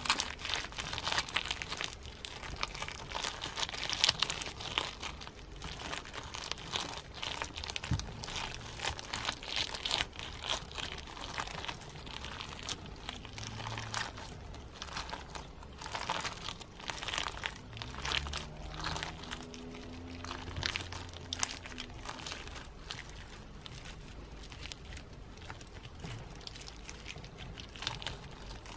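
Clear slime packed with snowflake-shaped plastic sequins being squeezed and kneaded by hand, the sequins crunching against each other in a dense crackling of many small clicks.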